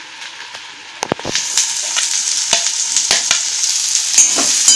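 Chopped onion, green chillies and curry leaves going into hot oil in a steel kadhai: a few sharp clinks of a steel spoon about a second in, then the oil breaks into a loud, steady sizzle as the vegetables hit it, with the spoon scraping now and then.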